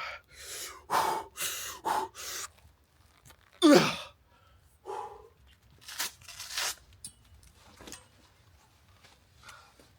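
A man breathing hard from exertion during weighted calisthenics: a run of forceful, noisy exhales, with a short voiced groan falling in pitch about four seconds in and quieter breaths after it.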